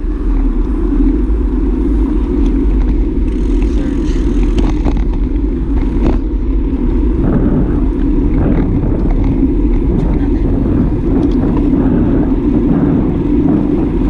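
Wind rushing over the microphone of a handlebar-mounted camera on a moving road bike: a loud, steady low rumble, with scattered small clicks and knocks from the bike over the road.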